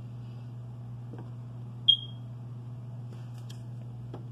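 A smoke alarm gives a single short high chirp about two seconds in, the low-battery warning of a detector whose batteries need replacing. Underneath runs a steady low hum, with faint clicks of tarot cards being handled on the table.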